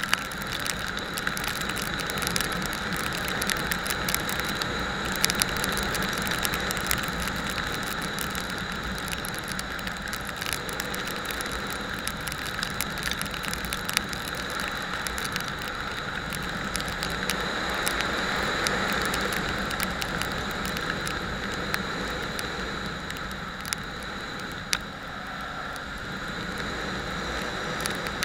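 Motorcycle on the move: a steady rush of wind and running noise, with occasional small clicks.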